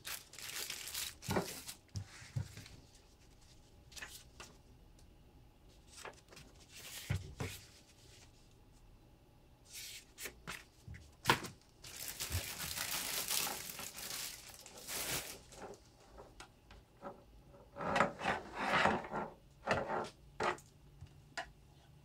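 Clear plastic packaging crinkling and rustling in irregular bursts as a handheld vacuum cleaner and its parts are pulled out of their bags, with a few sharp knocks between.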